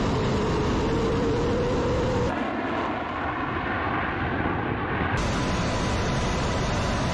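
Su-35 fighter's twin jet engines running at high power: a dense, steady noise with a whine that rises slightly during the takeoff roll. The sound changes abruptly about two seconds in and again about five seconds in, as the shots change.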